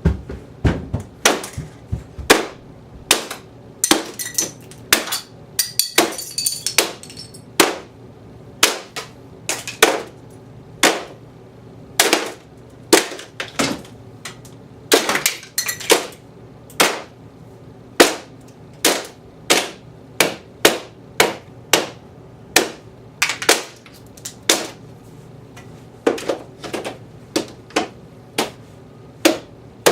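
Broomstick repeatedly striking and smashing a homemade plastic fire alarm box, sharp knocks a little more than once a second, with a brief rattle of breaking pieces about four to seven seconds in.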